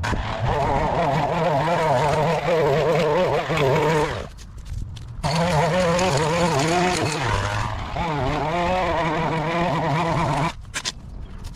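Small petrol engine of yard equipment running hard, its pitch wavering under load. It eases off briefly about four seconds in and again near the end.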